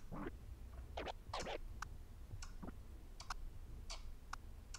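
Quiet chirp scratches on the djay Pro AI app's virtual turntable: short scratch strokes on a scratch sample, each cut off by the crossfader. A few longer strokes come in the first second and a half, then a run of short clicking chirps spaced out over the rest.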